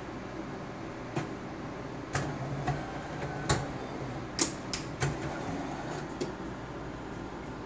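Dr.coffee bean-to-cup espresso machine just after finishing an espresso: a run of irregular sharp clicks and knocks, about eight in all, over a steady low hum.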